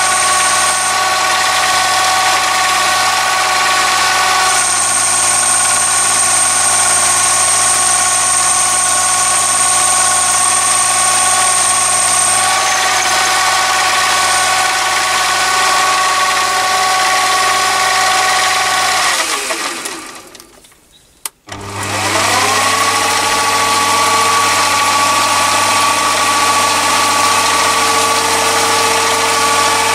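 Lathe motor and spindle running with a steady whine while a carbide-insert boring tool cuts an undercut in the bore of a mild steel billet. About two-thirds through, the motor is switched off and winds down to near silence. A click follows, and the whine rises back up to speed as the lathe restarts.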